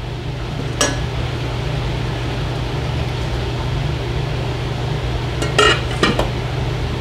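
Pot of vegetable soup boiling on a stove: an even bubbling hiss over a steady low hum. There is a sharp clink of cookware about a second in, and two more close together near the end.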